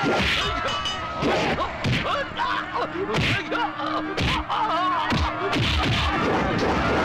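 Film fight sound effects: a run of about six punch and kick hits, each a sharp thwack with a falling low thud, over shouting voices.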